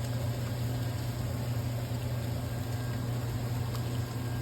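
A steady low mechanical hum with an even hiss behind it, and one faint click near the end.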